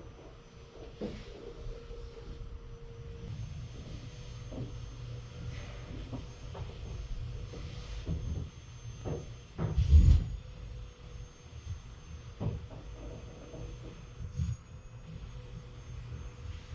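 Vacuum cleaner running in the next room, heard through the wall as a muffled steady hum with a faint motor whine, with scattered knocks, the loudest about ten seconds in.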